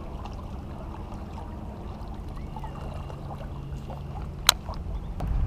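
Steady low outdoor rumble by a river, with a faint hum under it and one sharp click about four and a half seconds in.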